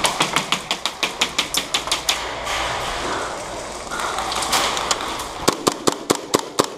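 Airsoft guns firing indoors in quick runs of sharp cracks, about six shots a second. A run of shots is followed by a stretch of steady noise of about three seconds, then a second run of shots.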